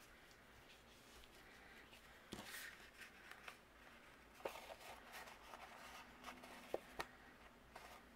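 Faint rustle of twine and cardstock being handled while a bow is tied around a paper card, with a few light ticks as the card shifts on the table.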